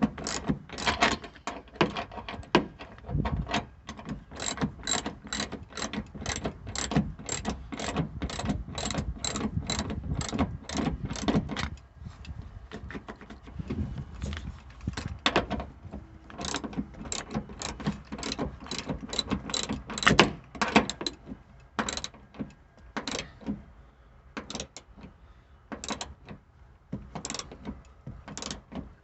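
Hand ratchet wrench clicking in quick repeated strokes, tightening the seat belt mount bolt; the strokes come about twice a second at first, then slower and more broken up about halfway through.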